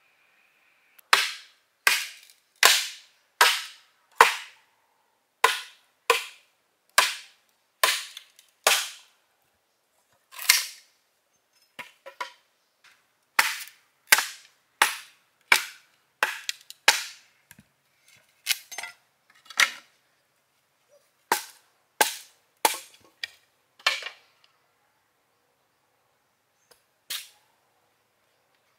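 Sharp chopping blows of a blade striking bamboo, about one every three quarters of a second, in several runs with short pauses; each blow rings briefly.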